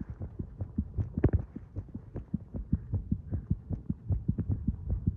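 Human heartbeat picked up against the chest: a steady run of short, low thuds.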